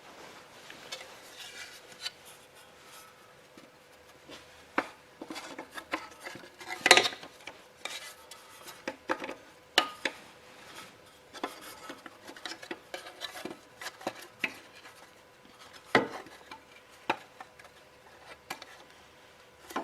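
Irregular clicks, knocks and scraping of hand tools and small metal parts being handled while a carburetor and fuel line are refitted to a small generator engine, with two louder knocks, about seven seconds in and near the end.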